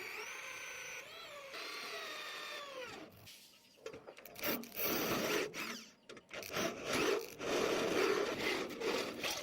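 Workshop tool sounds: a pitched whine that falls in pitch over the first three seconds, then irregular scraping and grinding with short pauses.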